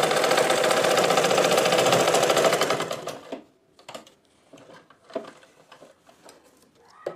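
Domestic sewing machine stitching at speed with a rapid, even rattle. It slows and stops about three seconds in, finishing the line of stitching that holds the elastic. Afterwards there are only soft rustles and small clicks of fabric being handled.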